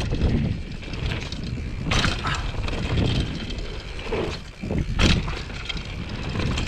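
2014 Giant Glory downhill mountain bike rolling fast down a dirt trail: a steady low rumble of tyres on dirt, with two sharp knocks or rattles from bumps about two and five seconds in.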